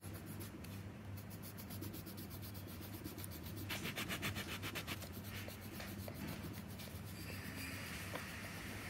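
Red colored pencil scratching back and forth on sketchbook paper as a drawing is shaded in, with a run of quick, rapid strokes about four seconds in.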